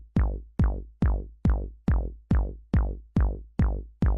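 Electronic background music: a drum-machine bass kick repeats about two and a half times a second, each hit a deep note that falls away quickly.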